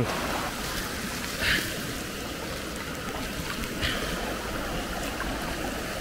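Mountain river rushing steadily, with two brief splashes, one about a second and a half in and one near four seconds in, as the cold water is tested by hand.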